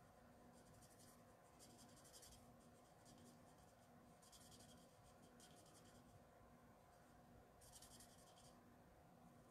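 Faint scratching of a Stampin' Blends alcohol marker's felt tip on cardstock: about half a dozen short strokes, each about half a second long, laying dark shading into the creases of a small coloured image. A faint steady hum underneath.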